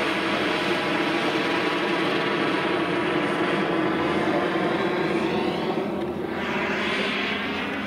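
Turbine-powered scale model Hughes 500 helicopter with a PHT-3 model turbine and five-blade main rotor flying past: a steady turbine and rotor sound. Its tone sweeps as it passes overhead about six seconds in.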